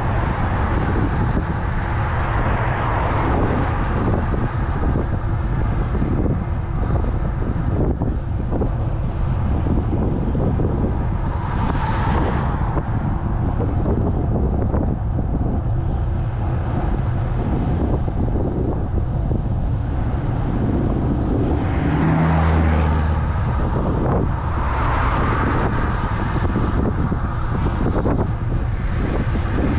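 Steady wind rush on a bicycle-mounted camera's microphone while riding along a road, with motor cars passing a few times; the loudest pass, about 22 seconds in, brings a low engine drone.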